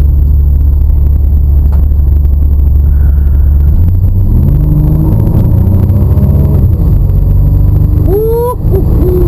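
A freshly tuned-up Chevrolet S10 pickup's engine heard from inside the cab, pulling under acceleration. Its pitch rises from about four seconds in, drops back, then climbs quickly again near the end.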